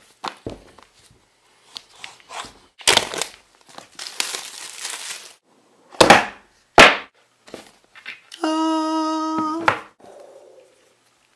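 iPhone 6s retail box being handled and opened on a table: light taps and rustles, a longer sliding rustle, and two sharp knocks about a second apart. Near the end a steady pitched tone sounds for about a second and a half.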